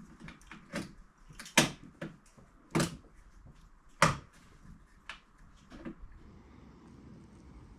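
Plastic tailgate trim pieces being pressed into their clips: a series of sharp clicks and knocks at uneven intervals, the three loudest about one and a half, three and four seconds in.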